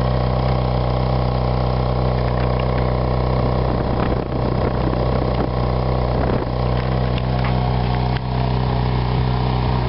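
Ferrari 458 Italia's 4.5-litre V8 idling steadily, heard right at its triple exhaust tips.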